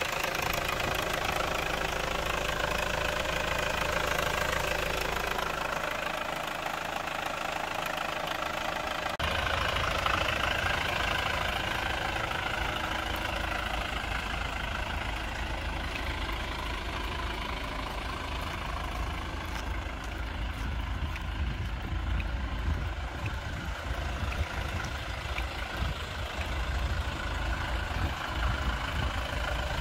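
A 2008 Hyundai Grand Starex's diesel engine idling steadily. About nine seconds in, the sound shifts, with more low rumble.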